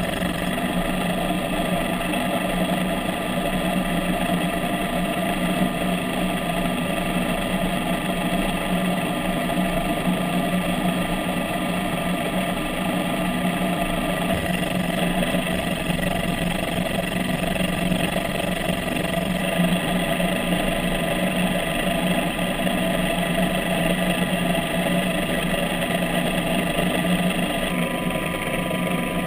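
Electric thruster motor and propeller of a REMUS 100 autonomous underwater vehicle running steadily underway: a continuous mechanical hum with a strong low drone and several steady higher tones. The mix of tones shifts a little near the end.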